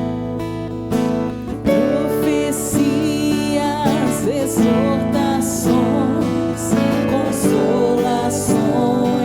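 Music: strummed acoustic guitar, with a fuller band and a steady beat joining about two seconds in under a wavering melody line.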